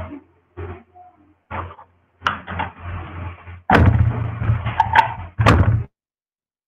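Muffled knocks, thumps and rustling handling noise coming through a video-call microphone, cut off abruptly about six seconds in.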